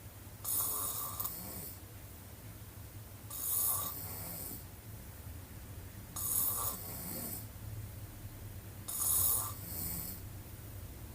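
A woman snoring with her mouth wide open: four snores, one about every three seconds, with quieter breathing between. A steady low hum runs underneath.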